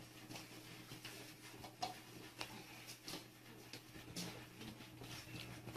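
Faint, irregular crunching and clicking of cats eating dry kibble from plates, over a low steady hum.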